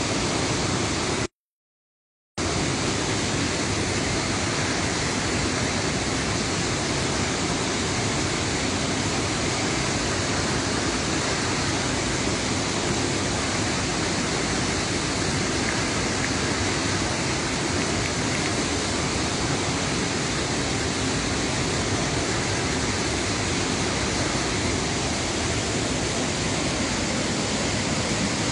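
Water from a full reservoir spilling over a dam's spillway and crashing down below: a steady, unbroken rush of falling water. The sound cuts out completely for about a second near the start, then resumes at the same level.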